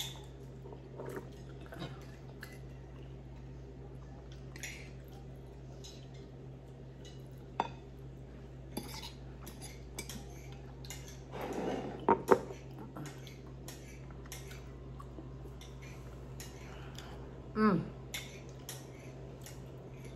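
Metal fork clinking and scraping against a ceramic plate, in scattered small clicks, with a louder clatter about twelve seconds in.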